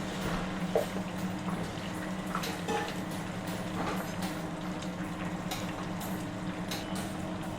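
Deep fryer oil bubbling around French fries, over a steady hum of kitchen equipment, with a few light clicks and knocks scattered through.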